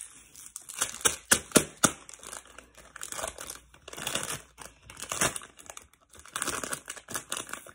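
Plastic Lay's chip bag crinkling as it is handled and a hand reaches inside, in irregular bursts with a few sharp crackles.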